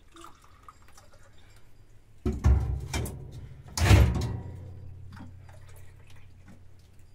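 Three heavy knocks within about two seconds, the last and loudest followed by a low ringing that fades away over about three seconds.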